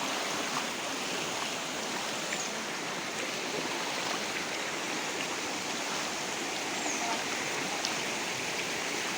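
River floodwater rushing in a steady, continuous flow as it pours through the village and into houses.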